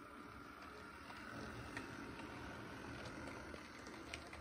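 HO scale model diesel locomotive running along the track: a faint, steady motor-and-gear whir with low rumble from the wheels on the rails and a few light ticks.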